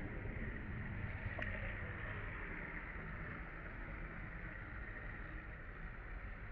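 Steady outdoor background noise, a low rumble with a hiss, and one short click about a second and a half in.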